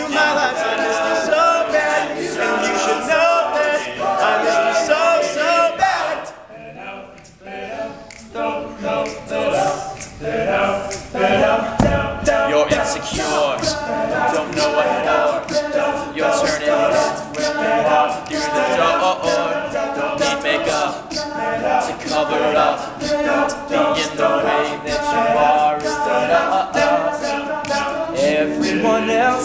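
All-male a cappella group singing in close harmony, with short sharp percussive hits over the voices. The sound drops to a softer passage about six seconds in, then the full group comes back in.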